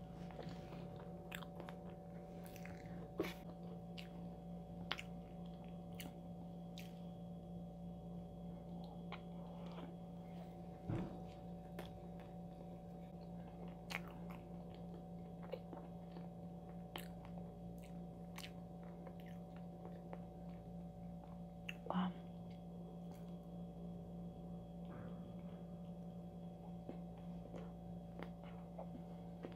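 Close-up chewing of a soft red velvet cookie sandwich with cream filling: wet mouth clicks and smacks scattered through, with a few louder ones, over a steady low hum.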